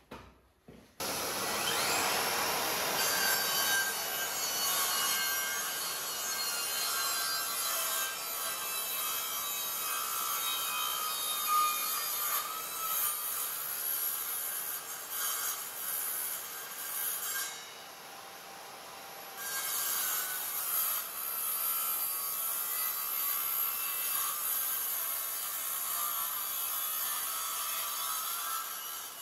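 Evolution R185CMS-Li 18 V cordless sliding mitre saw with its multipurpose blade starting up with a rising whine and cutting through wood. The sound dips briefly about two-thirds of the way through, runs on again, and cuts off suddenly near the end.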